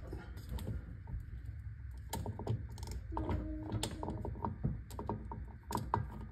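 Ratcheting clicks and metal clinks of a torque wrench and socket on the driveshaft-to-rear-differential flange bolts as they are run in and torqued to 57 ft-lb.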